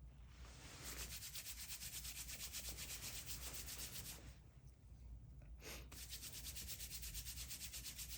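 A dreadlock being palm-rolled: hair rubbed quickly back and forth between the palms, a soft, fast, even rubbing in two runs with a short pause a little past halfway.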